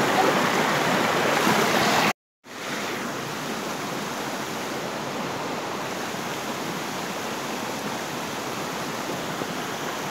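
Steady rushing of river water over rocks. About two seconds in it drops out for a brief moment of silence, then carries on a little quieter.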